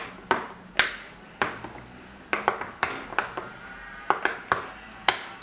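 Silicone Pop It fidget toy bubbles popping one after another as they are pressed: about a dozen sharp pops at an uneven pace of two to three a second.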